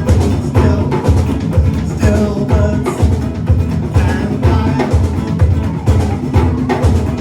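Live band playing an instrumental passage of a song, the drum kit keeping a steady beat with bass drum under pitched instruments.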